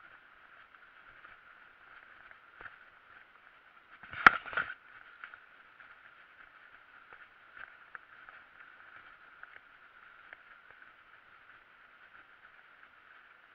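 Mountain bike rolling over a grassy dirt singletrack: a steady hiss of tyres and wind with small ticks from the bike. About four seconds in comes one loud, brief rattling jolt from the bike.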